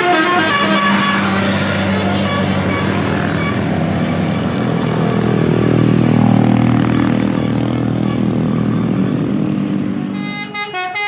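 Tour bus 'telolet' musical horn playing a quick run of stepped notes, which breaks off after about a second. A deep vehicle engine drone then takes over, swelling louder in the middle. The telolet horn melody starts up again just before the end.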